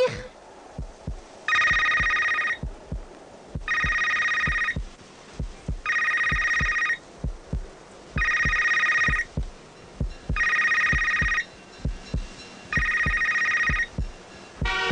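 Telephone ringing sound effect, six rings about a second long and about two seconds apart, over a steady low thumping pulse.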